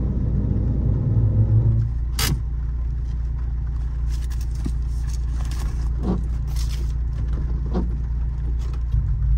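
Turbocharged Honda Civic Si 2.4-litre four-cylinder with aftermarket downpipe and exhaust, idling with a steady low drone as heard from inside the cabin. A sharp click sounds about two seconds in.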